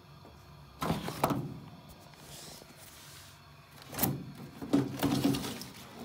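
Pleated furnace air filter being pulled out of its slot in the furnace cabinet: a few knocks and sliding scrapes of the filter frame against the sheet-metal rack.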